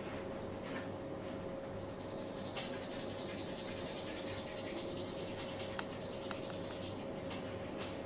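Massage hands rubbing over skin, with a long run of rapid, fine rubbing strokes through the middle and a few light clicks, over a steady faint hum.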